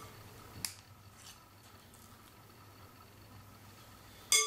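A metal spoon working soft cookie dough in a mixing bowl: a light tap about half a second in, then near the end a sharp clink of the spoon against the bowl with a brief ringing tone.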